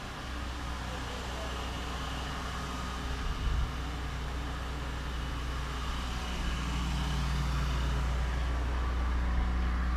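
Nissan 240SX engine idling high through a loud exhaust, a steady low drone that swells a little about two-thirds of the way through. The high idle is a fault the owner has not yet traced, which he thinks is something stuck open or closed.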